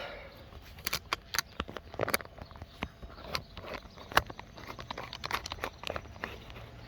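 Irregular clicks, taps and rustles of handling close to the microphone, with no steady rhythm.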